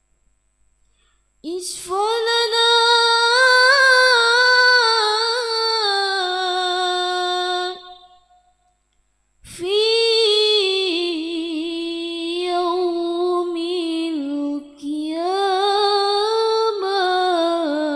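A woman singing solo and unaccompanied into a microphone: two long, ornamented phrases with a wavering, sliding pitch, the first starting about a second and a half in, the second after a short pause near the middle.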